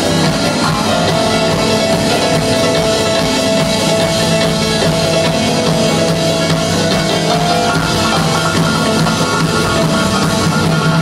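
Live rock band playing with drum kit and guitar, launching into a song, heard loud through an audience member's phone in a large hall.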